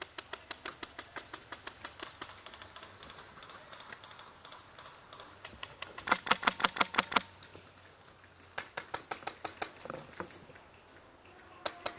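Airsoft rifles firing rapid strings of shots. A run of sharp cracks at about seven a second fades over the first few seconds. Then comes the loudest burst, about ten shots in a second, around six seconds in, followed by another string and a few more shots near the end.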